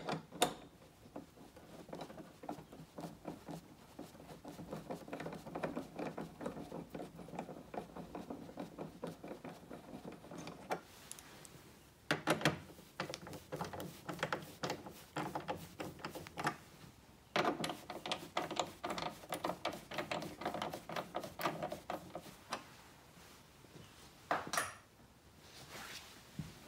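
Hand ratchet clicking in quick runs of several seconds with short breaks, as screws are driven into a metal light-pod bracket, with a few louder metallic knocks between the runs.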